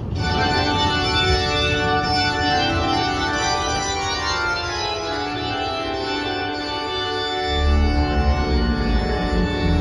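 Organ music playing sustained chords that start abruptly; deeper bass notes come in about seven and a half seconds in.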